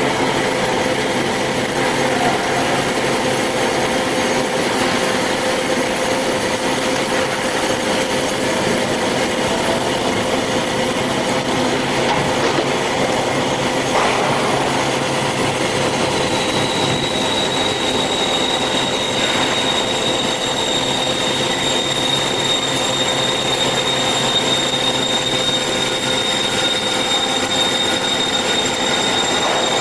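Metal-cutting band saw running through a cut, a steady loud metallic screech with a constant whine; a higher whine joins about halfway through.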